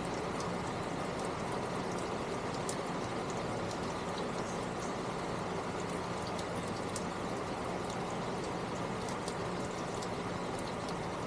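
Steady trickling, running water, with a low steady hum under it and faint short ticks scattered throughout.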